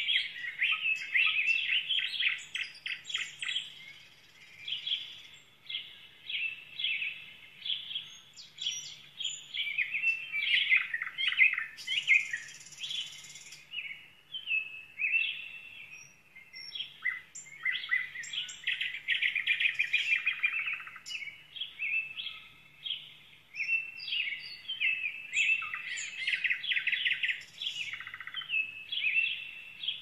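Small wild birds chirping and singing in quick twittering runs of notes, almost without pause.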